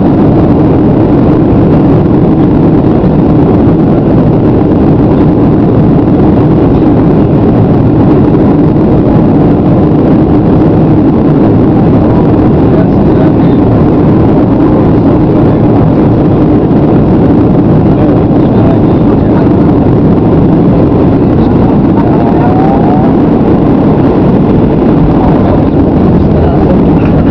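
Steady, low-pitched cabin noise of a Boeing 737-800 on final approach, heard from a seat over the wing: its CFM56-7B jet engines and the airflow over the extended flaps.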